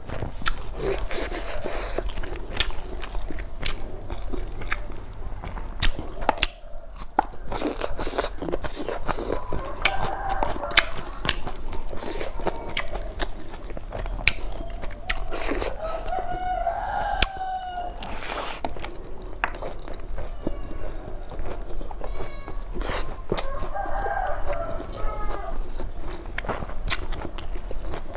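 Close-up eating sounds: steady chewing, crunching and mouth smacks with many small clicks. Three times a short pitched sound rises above them.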